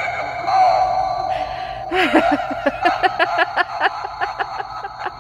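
Novelty spooky doorbell playing its sound effect through a small speaker: a drawn-out wavering tone, then from about two seconds in a quick run of short pulses, about six a second.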